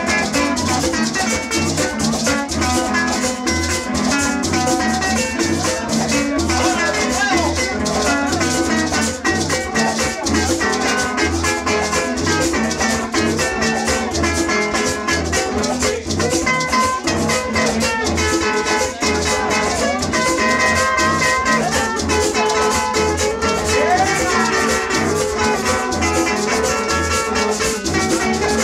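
Live acoustic Latin music: a guitar-type string instrument strummed, with a maraca shaking and a gourd güiro scraped in a steady rhythm.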